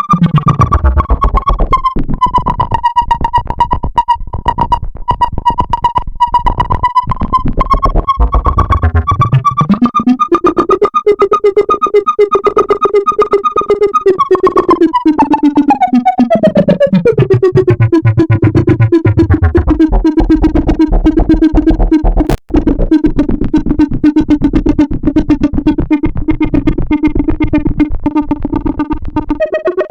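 Arturia Buchla Easel V software synthesizer playing a rapidly pulsing tone whose pitch slides down, climbs again about nine seconds in, and falls once more around fifteen seconds in. There is a brief drop-out about 22 seconds in.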